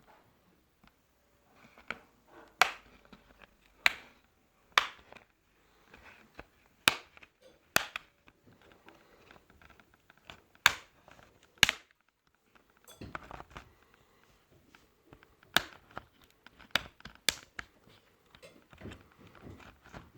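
Sharp clicks and taps from an HP ProBook 430 G5 laptop being taken apart by hand, about a dozen, irregularly spaced with a short lull near the middle.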